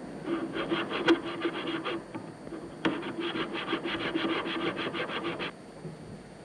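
A fuel valve housing's metal mating surface being ground by hand with a grinding tool: quick back-and-forth scraping strokes, about six a second, in two runs with a short break around two seconds in. A sharp click comes about a second in and another as the second run starts, and the strokes stop about five and a half seconds in.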